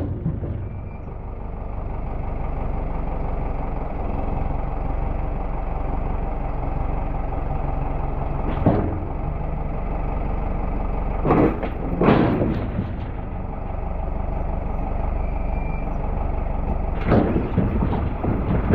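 An engine running steadily at a constant speed, with four short sharp knocks or cracks at uneven intervals.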